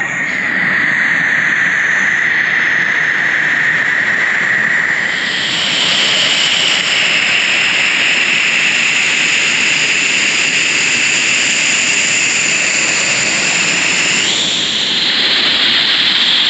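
Waterfall's steady roar of falling water, heard from underneath it like white noise. The tone of the rush shifts about five seconds in and again near the end.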